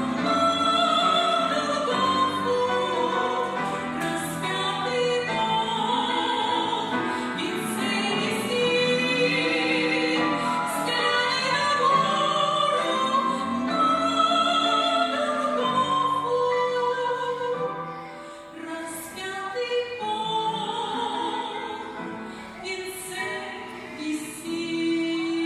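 Music: a song being sung, with long held notes that waver in pitch, growing somewhat quieter about two-thirds of the way through.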